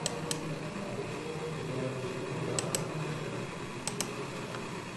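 Computer mouse clicking: three quick double clicks over a steady low background hum.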